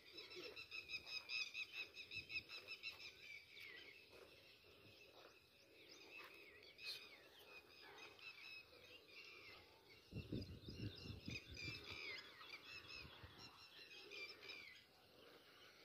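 Faint bird chirping: a quick run of high chirps for the first few seconds, then chirps on and off. A few low thuds come about ten seconds in.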